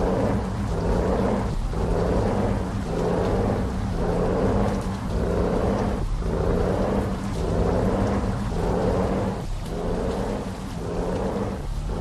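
Heavy truck on the road: a steady low rumble with a rhythmic whooshing that swells and fades about every three-quarters of a second.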